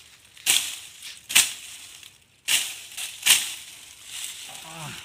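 A billhook chopping into the base of a wild date palm stump: four sharp chops about a second apart.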